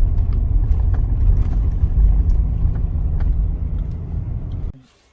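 Car driving along a road: a loud, steady low rumble from the road and engine, with scattered faint clicks. It cuts off suddenly near the end.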